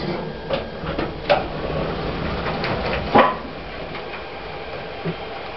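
Lift machinery: a few mechanical knocks and clicks over a steady hum, the loudest a sharp knock about three seconds in.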